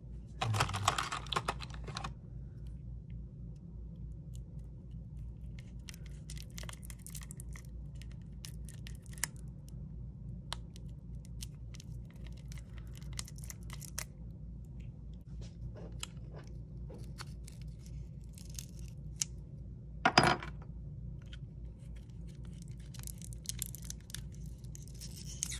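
Small clicks, scratches and taps of a plastic spudger prying and scraping inside an opened iPhone 6, with a louder scratchy burst about a second in and a sharp click near the end, over a steady low hum.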